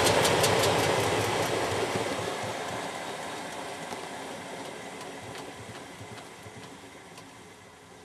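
Philips SL 202 washing machine's drum and belt drive coasting down after a spin. The whirring fades steadily, and a regular ticking slows and grows fainter as the drum winds down.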